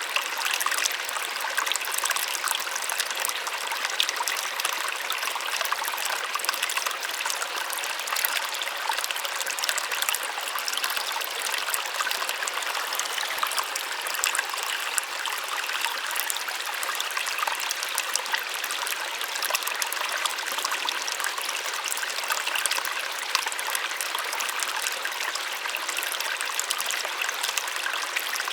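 Small waterfall splashing steadily, with a light hiss and no deep rumble.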